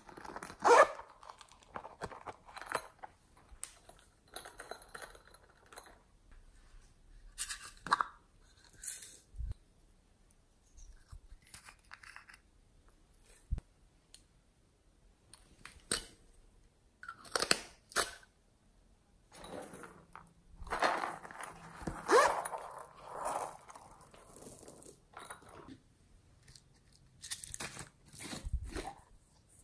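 Small plastic toys and containers and a soft pink piping bag handled close to the microphone: scattered rustling, rubbing and tapping sounds with a few short squeaks, separated by quiet gaps.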